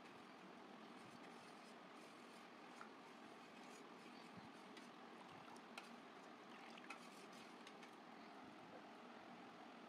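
Near silence: a steady faint hiss with a few faint clicks of a metal spoon touching a steel saucepan as lemon syrup is stirred.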